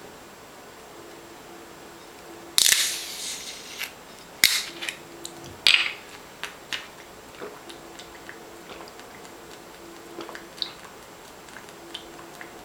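A few sharp clicks and knocks of handling, the loudest about two and a half seconds in with a brief hiss after it, then two more strong ones and scattered lighter ticks.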